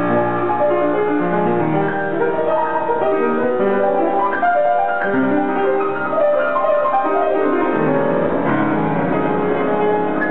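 Piano playing a piece: a melody over held chords, the notes changing every half-second or so.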